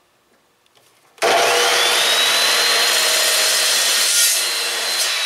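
Abrasive metal chop saw starting up about a second in, its motor whine rising to a high steady pitch over the grinding noise of the cut-off wheel, then starting to wind down at the very end.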